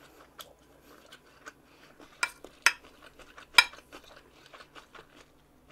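Eating utensils clicking and scraping against a dish, with three sharper clinks in the middle, the last the loudest.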